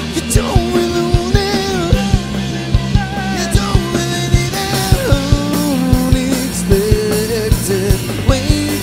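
Rock band playing live: a drum kit keeping a steady beat under electric bass and electric guitar, with a wavering lead melody on top.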